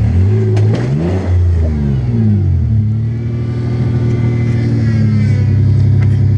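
Toyota Tacoma pickup's engine revving up and down, then held at steady high revs as the truck works its way up a rocky waterfall ledge under load.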